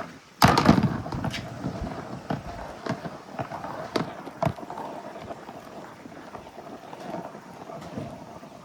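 Marbles rolling and clattering down a marble-run track, with a loud clatter about half a second in, then scattered clicks over a faint steady ringing as a ball runs along the rails.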